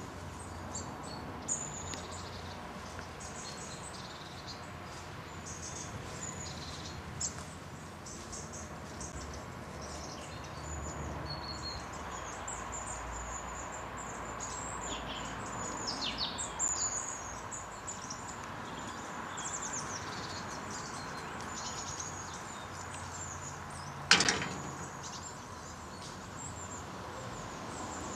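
Small birds chirping and singing intermittently in the surrounding trees, over steady faint background noise. One sharp knock stands out near the end.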